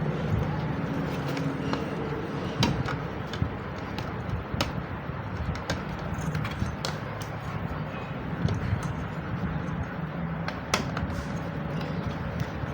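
Scattered sharp clicks and taps of small parts being handled as a battery charger is fitted back together, over a steady low hum.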